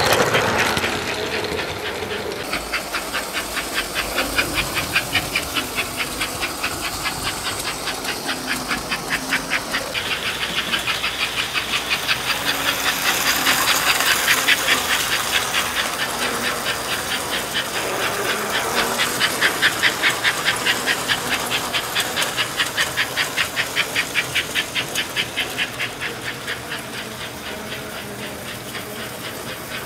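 American Flyer S-gauge Northern steam locomotive running around the track, its chuffer giving a fast, even hissing chuff with the motor and wheels running beneath it. It swells louder twice as the train passes close and eases off near the end.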